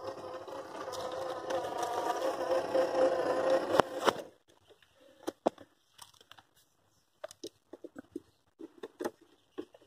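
RC crawler's Fusion 1800kv brushless motor and geared drivetrain whining steadily under load as the truck climbs, growing louder and then cutting off suddenly about four seconds in. Scattered light clicks and taps follow.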